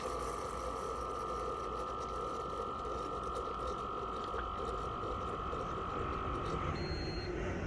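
Ninja Dual Brew Pro coffee maker running steadily with a whine as it brews, cutting off near the end, followed by a short beep that signals the brew is finished.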